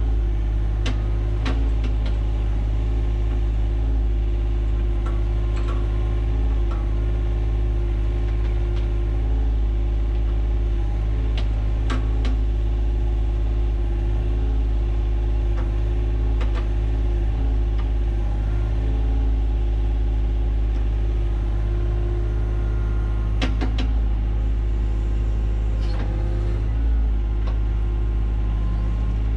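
John Deere 35G mini excavator's diesel engine running steadily while it backfills over the drain pipe trench, with scattered sharp clicks and knocks over the engine.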